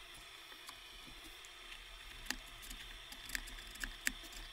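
Hand-smoothing of a wooden casting pattern on a workbench: faint rubbing over a steady hiss, with a few sharp taps and clicks in the second half.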